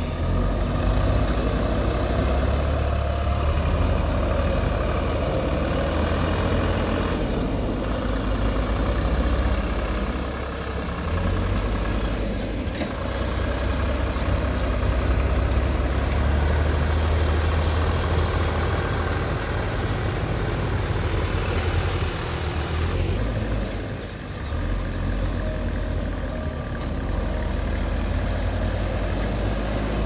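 Diesel engines of a JCB backhoe loader and a farm tractor running, a steady low engine drone that shifts and dips briefly a few times.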